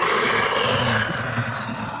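Giant-monster roar sound effect: one harsh roar that starts abruptly and tails off near the end.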